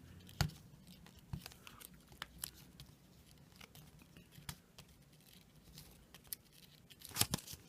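Packaging being carefully peeled and worked off a trading card booster pack: faint scattered crackles and clicks, with a louder cluster of crackling near the end.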